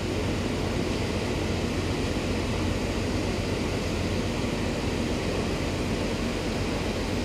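Steady low hum and rumble of a docked ro-ro ferry's running machinery, with an even hiss over it.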